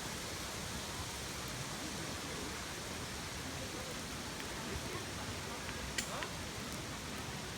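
Steady, even hiss of falling water from rain and ephemeral runoff waterfalls on a canyon wall. A single sharp click sounds about six seconds in.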